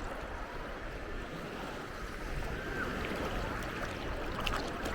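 Seawater sloshing and small waves washing, a steady wash of water noise with a few short clicks a little before the end.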